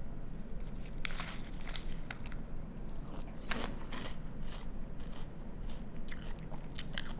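A person chewing a mouthful of Cascadian Farm Cinnamon Crunch cereal in milk: irregular crisp crunches in clusters about a second in, around three and a half seconds in, and near the end.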